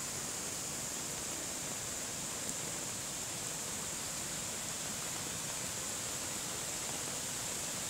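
A rain-swollen, muddy stream rushing and pouring down a small stepped cascade: a steady, even hiss of water.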